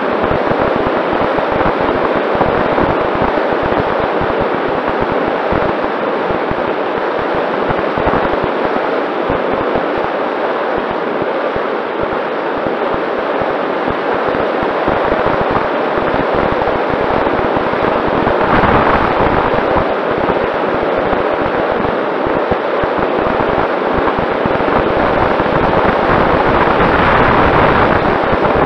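Wind rushing and crackling over the onboard camera of a Mini Talon RC plane in flight, with the steady whine of its Sunnysky 2212 brushless motor and propeller underneath. The rush swells briefly about two-thirds of the way through and again near the end.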